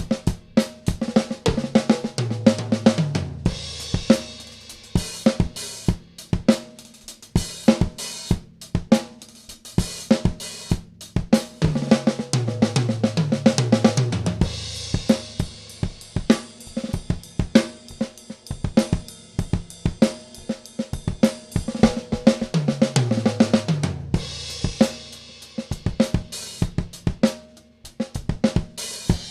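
A drum kit playing a steady groove: a Gretsch New Classic kit with a 20-inch bass drum, 10-, 12- and 14-inch toms and a 14-inch Mapex Saturn snare. Three times, roughly every ten seconds, a fill runs down the toms from high to low and lands on a cymbal crash.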